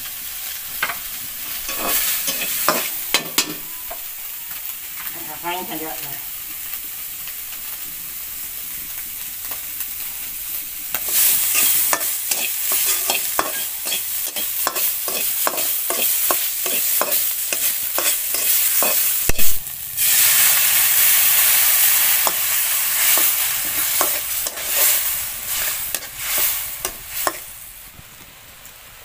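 Meat frying in oil in an iron wok, with a metal spatula scraping and clanking against the pan as it is stirred. About a third of the way in the sizzling turns much louder and stays loud, with a sharp knock past halfway, then dies down near the end.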